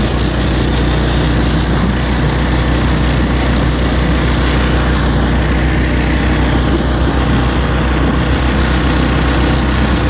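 A motor vehicle's engine running steadily with a constant low drone, heard from on board with road or wind noise over it.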